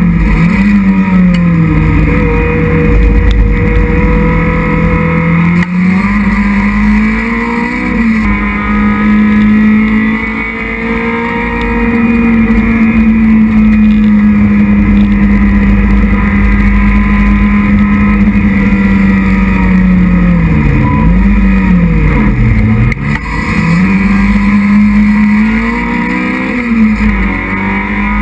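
Citroën Saxo race car's engine at racing speed, heard from inside the stripped cabin. The revs hold high and steady through a long middle stretch, with drops in pitch near the start and two sharp drops a little past two-thirds of the way, then climb again near the end.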